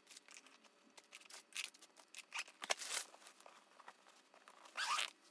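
Packing sounds of a makeup bag and its contents being handled: scattered rustles and small clicks, with one longer rasp near the end.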